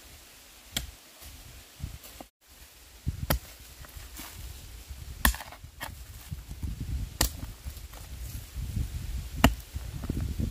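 Repeated chopping strikes with a hand tool: five sharp blows, roughly one every two seconds, with low thuds and rustling between them.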